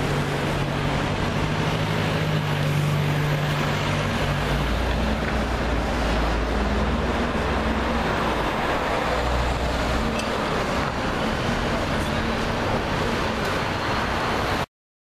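Street traffic: vehicle engines idling and running steadily in slow city traffic, a low engine hum over road noise, with no revving. It cuts off abruptly near the end.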